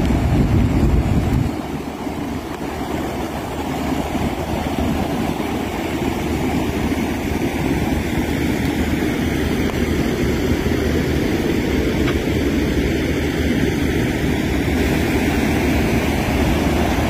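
Steady rush of floodwater pouring across and over the edge of a road, mixed with wind buffeting the microphone, heaviest at low pitch in the first second and a half.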